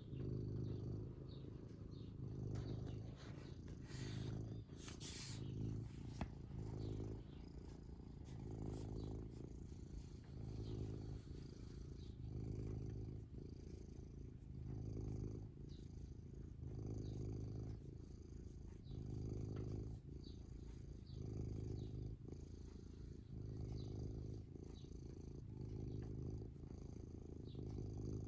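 Domestic cat purring steadily, a low fluttering rumble that swells and fades with each breath, roughly every two seconds. A brief rustle about four to five seconds in.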